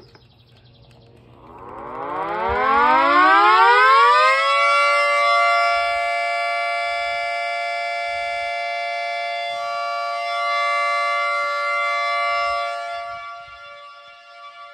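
Outdoor tornado warning siren sounding for a tornado warning. It winds up in a rising glide over about three seconds, holds a steady wail, then begins to fade near the end.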